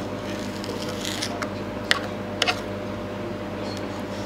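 Victorinox knife slicing thin strips of chokka squid on a plastic cutting board, with a couple of sharp clicks about two seconds in, over a steady hum.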